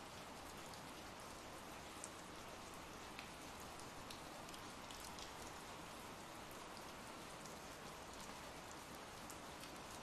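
Faint, steady rain with a few scattered drop ticks: an ambient rain sound effect.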